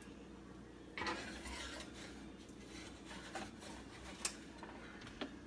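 Kitchenware being handled: rubbing and scraping that start suddenly about a second in, with a light clink about four seconds in.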